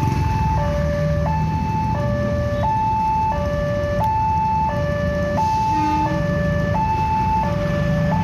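Electronic warning alarm of a railway level crossing, of the Indonesian 'Alarm Indonesia' type, sounding a two-tone hi-lo pattern that alternates between a lower and a higher pitch about every half second, warning that a train is approaching. Idling road traffic rumbles underneath.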